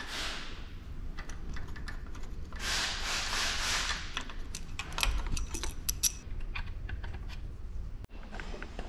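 Hands handling parts on an engine: plastic and metal parts clicking, knocking and rubbing, with a run of sharp clicks in the middle.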